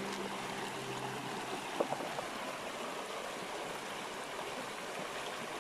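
Steady rush of river water. About two seconds in, a single light knock of the bamboo spatula against the aluminium wok.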